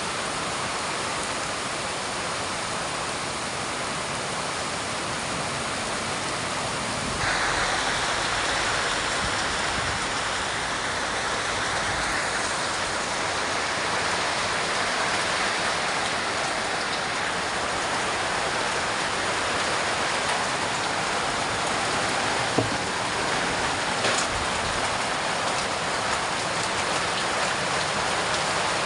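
Heavy rain pouring steadily, growing heavier about seven seconds in, with two brief sharp knocks later on.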